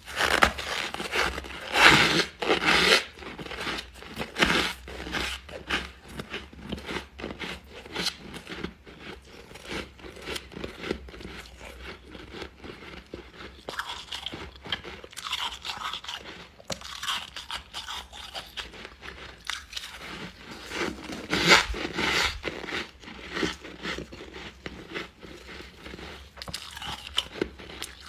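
Refrozen freezer frost being bitten and chewed close to the microphone: continuous crunching, with louder bites about two seconds in and again about two-thirds of the way through.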